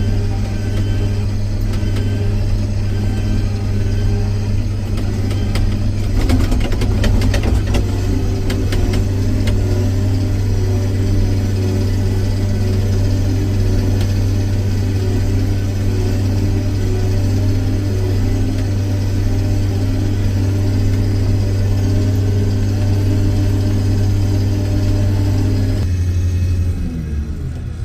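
John Deere 9230 tractor engine running steadily with a deep hum, with a burst of rattling about six to nine seconds in. Near the end the engine note falls as it throttles down.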